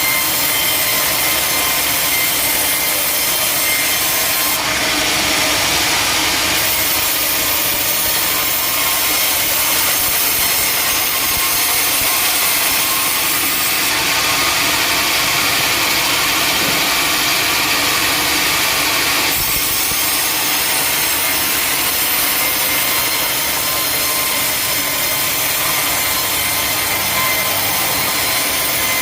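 Sawmill saw cutting through a teak log, a steady loud hiss and rasp of the blade in the wood. It brightens briefly a few seconds in and again for several seconds in the middle.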